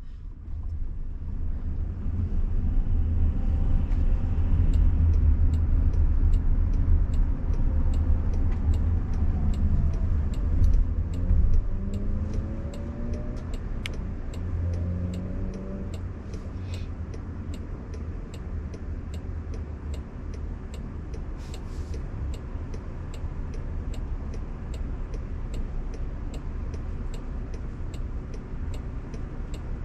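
Road and tyre rumble inside the cabin of a Waymo driverless Jaguar I-PACE on the move, loudest in the first half, with tones sliding up and down in pitch around the middle and a faint steady ticking throughout.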